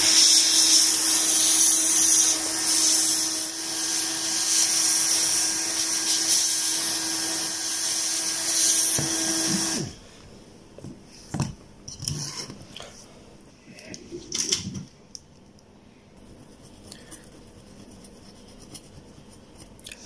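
Hot air rework gun blowing steadily, a loud hiss over a low motor hum, as it heats the solder joints of a micro-USB port to desolder it. The air cuts off suddenly about ten seconds in, followed by a few faint clicks and taps as parts are handled.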